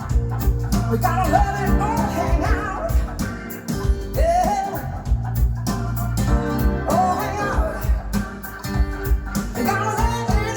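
Recorded song played back: guitar with a steady bass and drum beat and a wavering sung or lead melody line.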